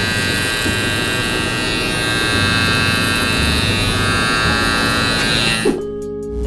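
Cordless hair clipper with a guard buzzing steadily as it is run down through a thick beard, the blades chattering through the hair. The cutting sound drops away near the end.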